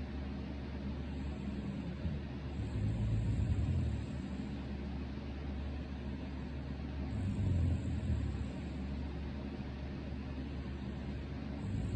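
A sleeping person snoring, a low snore every four to five seconds (three in all, the last starting near the end), over the steady whir of an electric fan.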